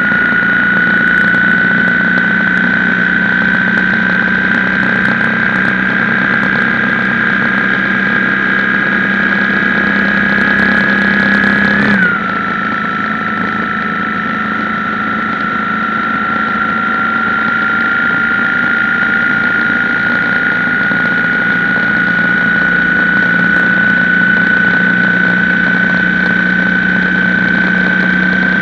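BMW R1150GS boxer-twin engine running loud under way, its whine slowly rising in pitch as the bike gathers speed. About twelve seconds in the pitch drops suddenly at a gear change, then climbs slowly again.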